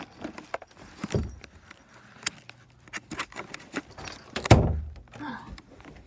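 Handling and knocking noises: scattered light clicks and taps, with a heavy thump about a second in and a louder one at about four and a half seconds.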